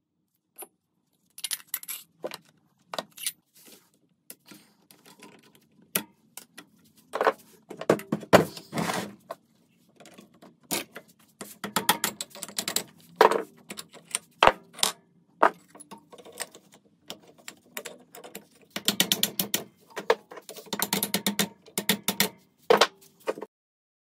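Metal parts and hand tools clinking and knocking in irregular bursts, busiest around the middle and again near the end, some strikes ringing briefly.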